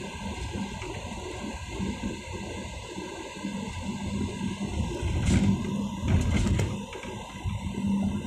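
Car driving, heard from inside the cabin: a steady low rumble of engine and road noise with a constant hum, swelling louder a little past halfway.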